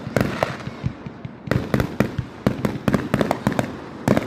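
Fireworks going off: a rapid string of sharp cracks and bangs, a few at first, then thick and fast from about a second and a half in.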